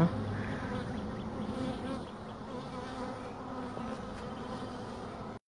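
Honeybees buzzing in a steady hum over an open hive full of bees. The sound cuts out abruptly just before the end.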